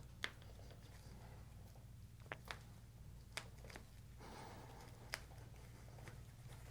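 Quiet handling sounds during a chiropractic treatment: soft rustling with about five short, sharp clicks scattered through it.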